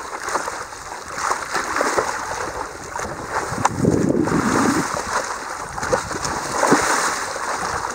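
Small sea waves lapping and splashing against a windsurf board, with a louder splash about four seconds in as a dolphin surfaces close by.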